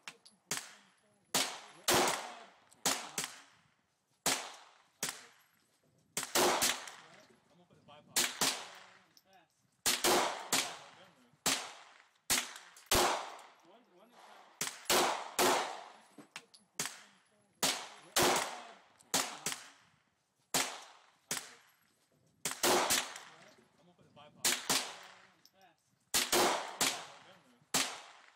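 Smith & Wesson 442 Airweight, a hammerless snub-nose .38 Special revolver, fired over and over, about one shot a second and sometimes two in quick succession. Each shot is a sharp crack with a short echo trailing after it.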